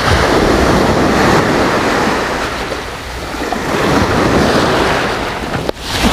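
Sea surf breaking and washing up over a pebbly beach, the foam rushing in around the feet. It is loud at first, eases about three seconds in, surges again with the next wave, and drops out briefly near the end.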